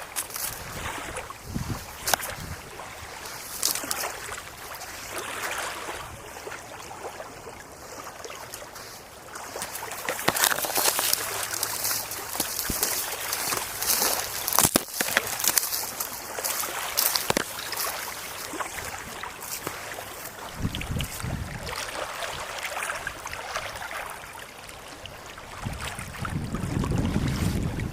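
Gusty wind blowing over the microphone, with crackling and deep buffeting rumbles about 20 seconds in and again near the end.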